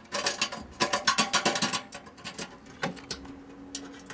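Small metal parts clicking and rattling as a brass screw-on antenna connector and its hex nut are handled at the metal back panel of a PC case: a rapid flurry of clicks over the first two seconds, then a few single clicks.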